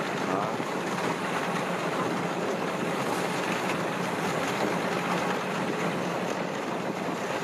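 Farm machinery engine running steadily, with a constant low hum under a rushing noise of wind on the microphone.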